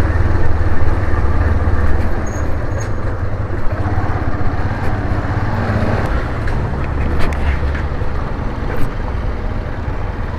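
Motorcycle riding at low speed: the engine runs steadily under a heavy rumble of wind and road noise on the bike-mounted microphone, with a few brief knocks.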